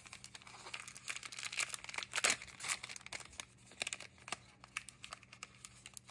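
Wrapper of a 2022 Panini Diamond Kings baseball card pack crinkling and tearing as it is pulled open by hand. The crackling is densest and loudest about two seconds in, then thins to scattered crinkles.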